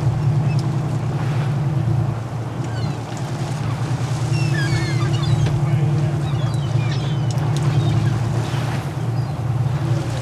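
Boat's engine running steadily, a low even drone, with wind and sea-water noise.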